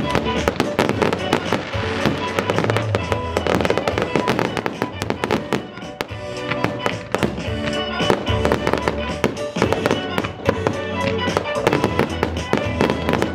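Fireworks display with a rapid, dense run of bangs and crackling from aerial shells and fountains, over loud music.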